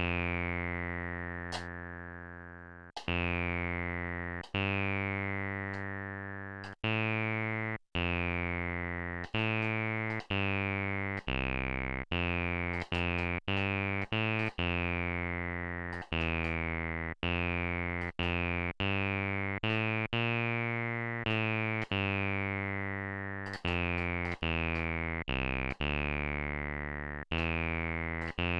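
Venom VB-303, a software emulation of the Roland TB-303 bass synthesizer, sounding single acid bass notes one at a time while its pattern is stepped through and edited. The notes come at uneven intervals and change pitch, and each one opens with a bright resonant filter sweep that falls away as the note decays.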